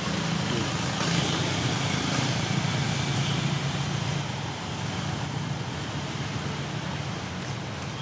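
Steady low rumble of a motor vehicle engine running, with a rushing hiss over it, easing slightly about halfway through.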